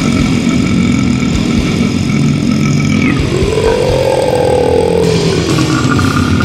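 Death metal band playing: heavily distorted, low-tuned guitars over fast, dense drumming, with a note that bends up and back down about halfway through.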